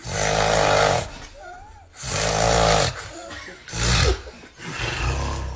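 A person snoring loudly: four harsh, rattling snores, about one every one and a half seconds, with quieter breathing between them.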